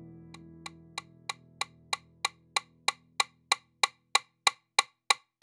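Metronomes ticking in a steady beat, about three ticks a second, growing louder. The last held notes of background music fade out underneath in the first seconds.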